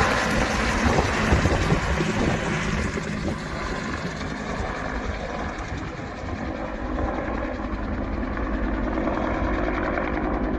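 Helicopter rotor beat and engine noise, growing duller and quieter over the first few seconds as it moves away, then holding steady.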